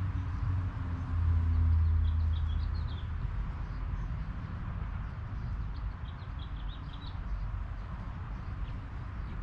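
Birds chirping in short, high clusters, three times, over a steady low rumble that swells about a second in and then settles.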